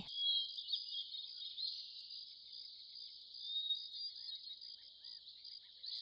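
Steady, high-pitched chorus of chirping insects, with a few faint bird chirps.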